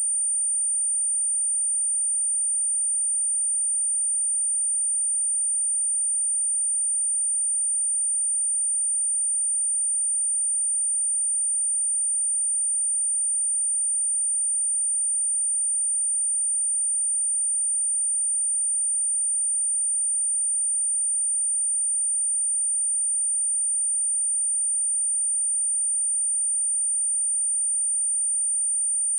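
A steady, unbroken 9035 Hz sine-wave test tone, a single high-pitched pure whistle, used to check a speaker and to shake water and dust out of it.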